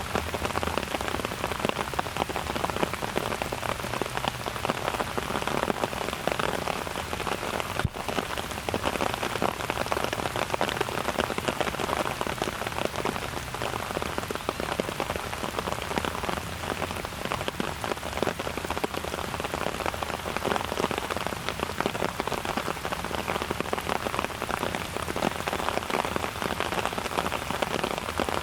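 Steady rain falling, a dense, even patter of raindrops hitting surfaces close by.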